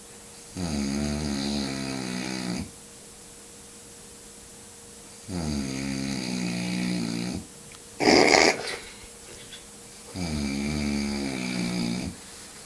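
A man snoring: three long snores about five seconds apart, each lasting around two seconds. A short, louder noisy sound comes between the second and third.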